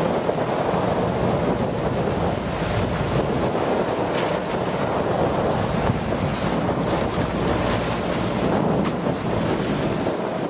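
Wind buffeting the microphone and choppy waves rushing and splashing past a motorized outrigger boat under way. A steady low engine hum runs underneath.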